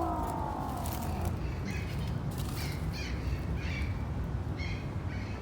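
A crow cawing repeatedly in short, harsh calls, about eight of them, after a brief rising call in the first second, over a steady low rumble.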